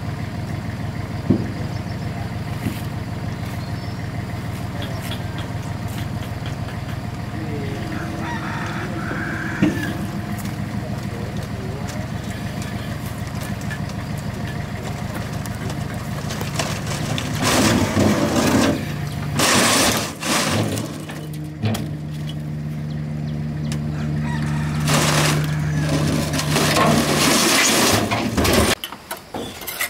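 A motor running steadily at one speed, with louder rushing, noisy bursts over it in the second half. The motor cuts out about a second before the end.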